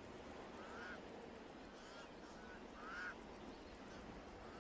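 Pied crows cawing, a few short faint calls, the loudest about three seconds in.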